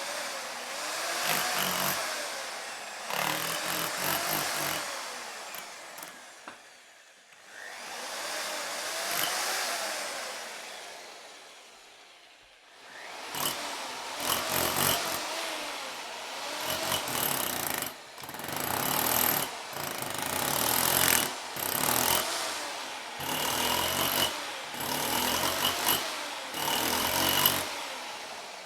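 Jackhammer breaking concrete: two longer swelling runs, then from about halfway a string of short runs of a second or two each, with brief stops between them.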